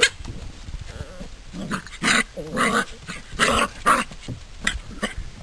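Seven-week-old Drever puppies play-fighting, giving several short growling and yapping bursts, most of them between about two and four seconds in. A sharp knock sounds right at the start.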